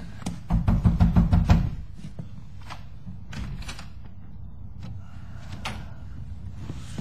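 Rapid knocking on a wooden door: a quick run of about eight knocks lasting a second and a half, followed by a few faint taps and clicks.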